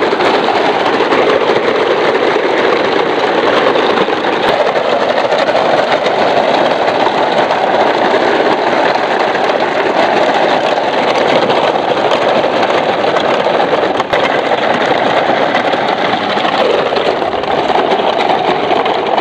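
Plastic toy dump trucks rolling in a long convoy over gravel, their wheels giving a steady, loud rattling rumble.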